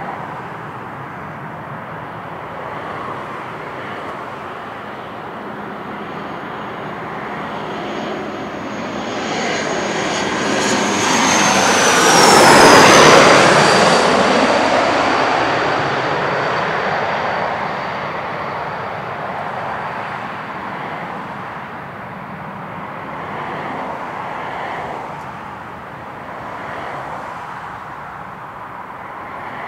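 Jet airliner engines: the noise swells to a peak about halfway through as an aircraft passes, its high whine dropping in pitch, then fades back to a steady distant engine noise.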